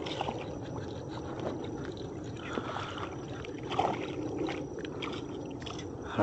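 Light water splashing and sloshing from a small hooked bass struggling at the surface on a fly line, with a brief splash about four seconds in, over steady background noise.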